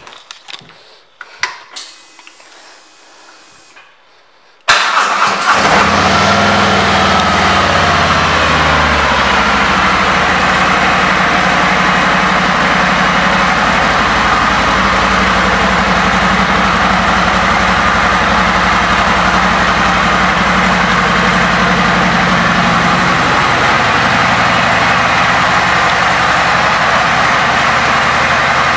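2019 Harley-Davidson Road Glide Ultra's Milwaukee-Eight V-twin starting about five seconds in, after a few faint clicks, then idling steadily. The idle settles a few seconds after the engine catches.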